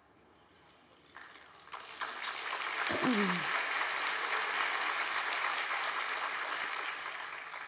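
Audience applauding: the clapping builds up over the first two seconds, holds, and fades near the end, with one voice calling out in a falling tone about three seconds in.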